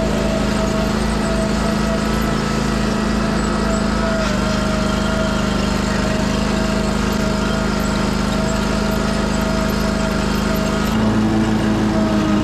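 Commercial lawn mower engine running steadily under load while cutting grass. The engine note shifts slightly near the end.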